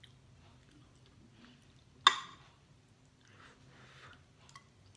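Metal cutlery strikes a ceramic plate once about two seconds in, a sharp clink with a brief ring, followed by faint soft noises of eating.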